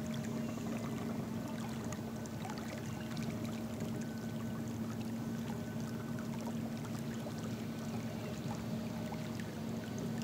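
Electric trolling motor on a kayak running at a steady speed, a constant even hum.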